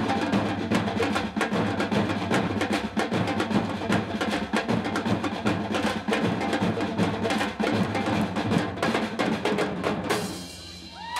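Percussion ensemble of bass drums, congas and other drums playing an Afro rhythm together, then stopping abruptly on a cue about ten seconds in. The drums ring out briefly and audience whoops and cheering begin at the very end.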